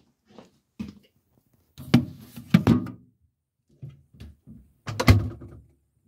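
Knocks and bumps as a phone is set down on a refrigerator shelf, then the fridge door shuts with a thud near the end.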